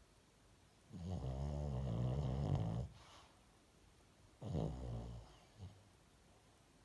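A dog snoring: one long snore about a second in, then a shorter snore about four and a half seconds in.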